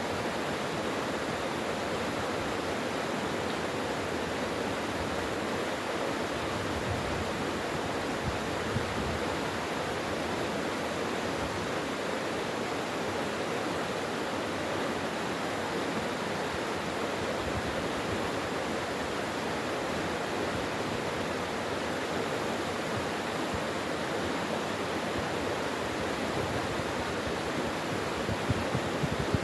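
Mountain valley stream flowing: a steady, unbroken rush of water.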